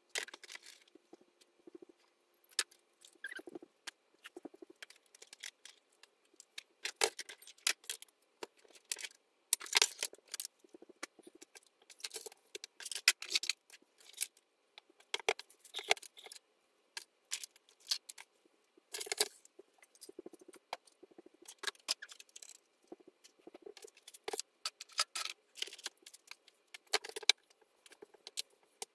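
Small objects clattering, clicking and rustling on a worktable as a sewing area is tidied by hand: irregular knocks and clicks, several sharper ones standing out.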